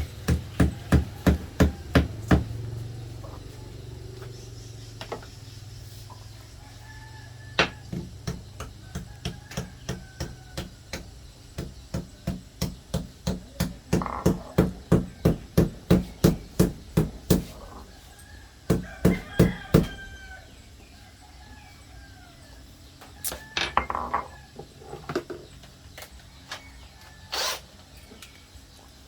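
Hammer blows, struck in quick runs of about three to four a second with pauses between the runs.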